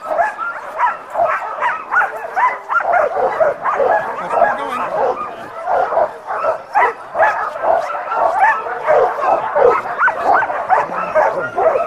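A team of sled dogs barking, yipping and whining together, many overlapping calls with no pause. This is the excited din of dogs eager to run.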